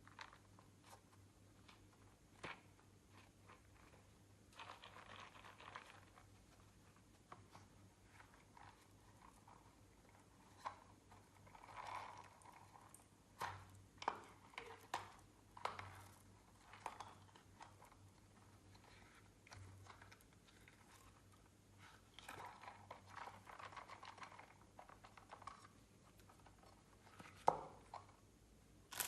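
Faint squishing, crackling and clicking of clear slime being worked by hand, coming in irregular spurts with scattered sharp pops, the sharpest near the end.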